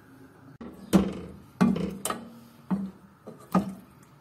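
A wooden spoon knocking against the side of a metal cooking pot while stirring chicken pieces in water. There are about five sharp knocks, the first about a second in and the loudest, and each leaves the pot ringing briefly.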